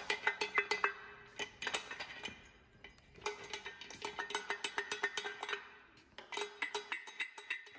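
Polaris primary clutch clinking and rattling as it is handled, in quick runs of metallic clicks with a light ringing tone, coming in four bursts with short pauses between.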